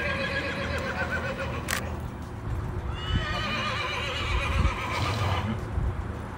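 A horse whinnying twice with a wavering pitch: the first call tails off about two seconds in, and a second, longer call runs from about three to five and a half seconds.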